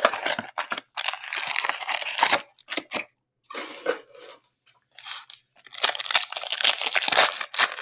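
Foil packs of 2021-22 Upper Deck SPX hockey cards crinkling and being torn open by hand, in several rustling bursts with short pauses between.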